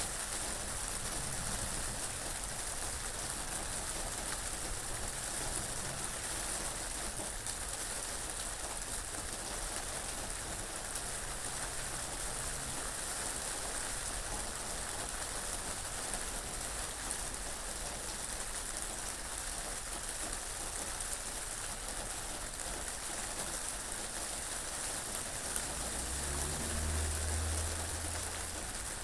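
Steady rain falling, an even hiss. A low rumble swells briefly near the end.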